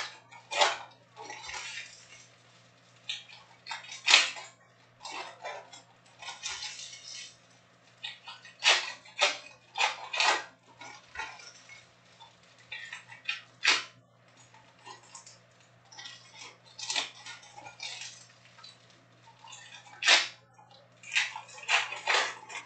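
Topps Chrome trading-card packs being handled and opened: the foil wrappers crinkle and rustle in short, irregular bursts, with the light clicks of cards being handled.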